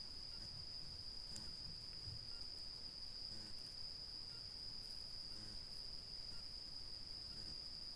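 Night insects trilling: one steady, unbroken high-pitched tone.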